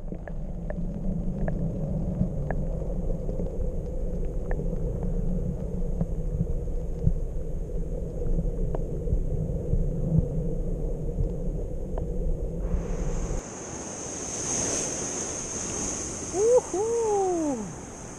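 Underwater sound of the sea among rocks: a low rumble with scattered faint clicks. About thirteen seconds in it changes abruptly to surf and wind on the microphone on the open shore, with two short swooping whistle-like tones near the end.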